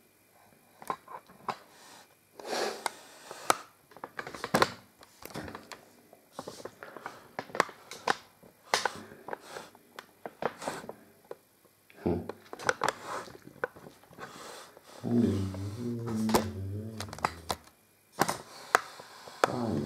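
Scattered knocks and clicks at an irregular pace, with a low wavering hum lasting a couple of seconds about fifteen seconds in.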